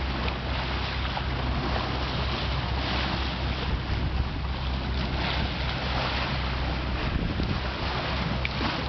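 Wind buffeting the microphone over a steady rush of water along a sailboat's hull as it sails.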